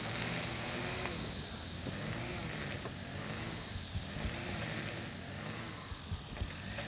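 A landscaper's handheld gas-powered yard tool running, its engine note and airy hiss swelling and fading about every two seconds.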